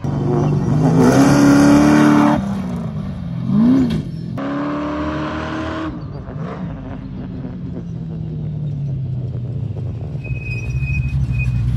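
Dune buggy (sand rail) engine revving hard in bursts, its pitch rising and falling as it climbs a sand dune, then running on more steadily.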